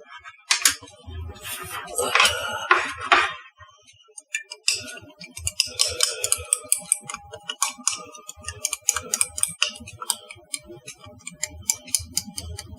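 Quick, irregular clicking and rustling from hands working at a kitchen bench, with a louder scraping rustle in the first three seconds or so.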